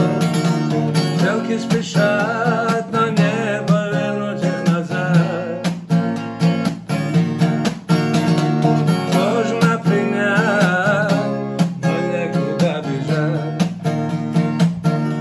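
Acoustic guitar with a capo, chords strummed in a steady rhythm as an instrumental break.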